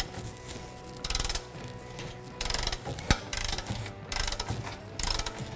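Half-inch-drive ratchet clicking in short bursts about every second and a quarter as the 18 mm lower shock mounting bolt is turned out, each back-swing of the handle running the pawl over its teeth.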